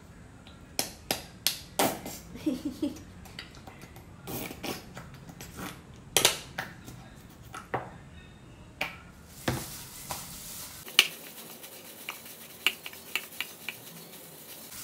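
A plastic squeeze bottle of mayonnaise being handled and squeezed over a mixing bowl: a run of irregular sharp clicks and knocks, some loud, through the whole stretch.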